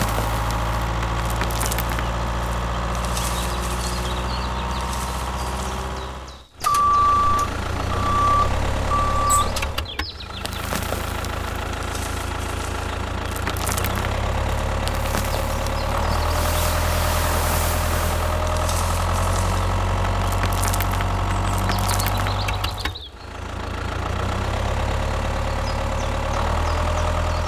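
Steady hum of a vehicle engine, broken by a few sudden cuts. About seven seconds in come three short, even, single-pitch reversing beeps.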